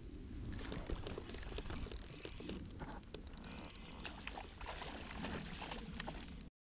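A hooked pike splashing and thrashing at the water's surface as it is played in, with a stream of rapid clicks and crackles; it cuts off suddenly just before the end.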